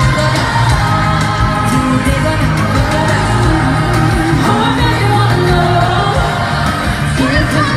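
Girl-group pop song performed live in an arena: sung vocals over a band backing with a strong, steady bass.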